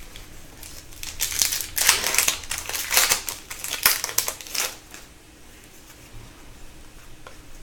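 Foil wrapper of a hockey card pack crinkling as it is torn open, with a run of rustly crackles over a few seconds, then the cards being handled quietly.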